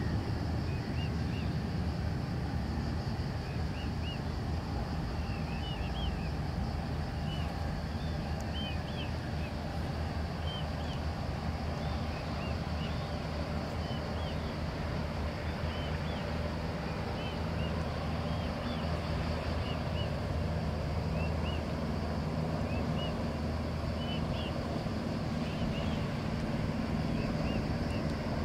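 Twin-engine Airbus A320 jet climbing away after takeoff, heard as a steady low rumble of its engines from a distance. Short high chirps come again and again throughout.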